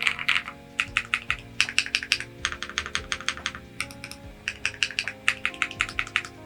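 Fast typing on a Bridge 75 mechanical keyboard: quick runs of keystroke clicks with a short pause about four seconds in.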